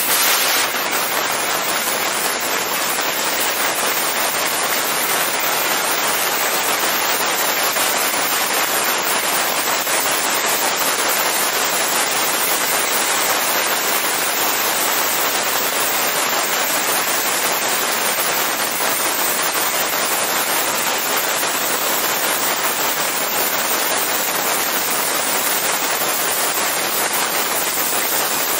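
Steady hiss of Han's Laser fiber laser cutters cutting thin stainless steel sheet, the cutting heads' gas jet and spark spray running without a break.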